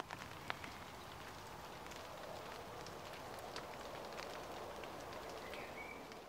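Faint, steady hiss with scattered sharp clicks and crackles, fading slightly near the end.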